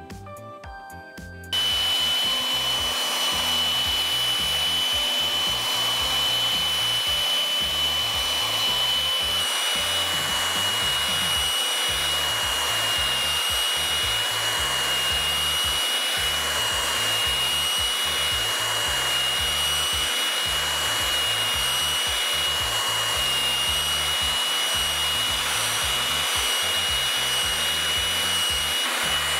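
Handheld belt sander running steadily against a wooden tabletop, its motor giving a constant high whine over the rasp of the belt, stripping the old urethane finish. It comes in suddenly about a second and a half in.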